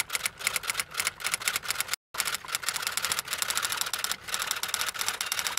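Typewriter key clicks as a sound effect: a fast, even run of sharp clacks with a brief pause about two seconds in.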